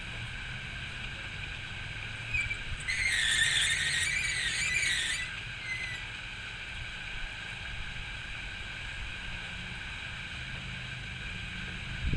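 Old block pulley squealing as the wire runs through it, a wavering high-pitched squeal of about two seconds starting about three seconds in.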